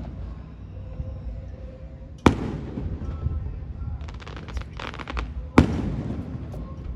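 Aerial fireworks: two loud shell bursts about three seconds apart, each booming and echoing, with a fast crackling of crackle stars between them.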